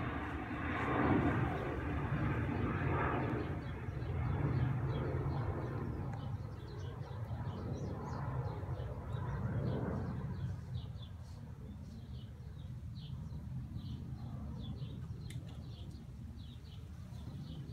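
Outdoor ambience: a low rumble like passing traffic that fades about ten seconds in, with small birds chirping repeatedly throughout.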